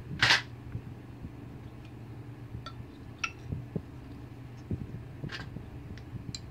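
Handling noises of a motorcycle brake master cylinder and lever worked by hand over a metal tray: a scrape just after the start, then a few light metal clinks and clicks, over a steady low hum.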